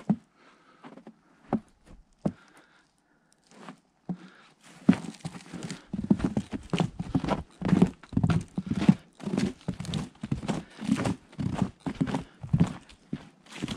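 Boots crunching in fresh snow on a plank boardwalk: a few separate steps at first, then steady walking at about two steps a second from about five seconds in.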